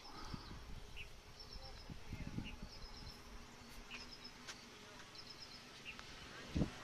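Faint insect buzzing: a low steady hum comes in a couple of seconds in, with short high chirps repeating about once a second. A soft thump near the end.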